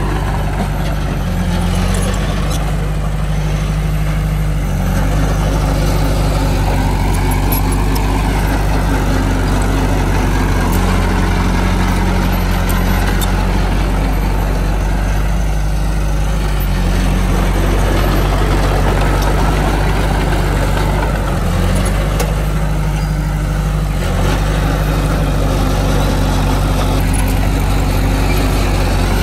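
Heavy diesel engine of earthmoving machinery running loudly and continuously, its pitch stepping up and down several times as the throttle and load change.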